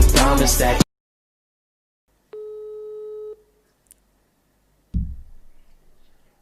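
Intro music cuts off abruptly under a second in. After a short silence a single steady telephone line tone sounds for about a second, as a call rings through, and a low thud follows near the end.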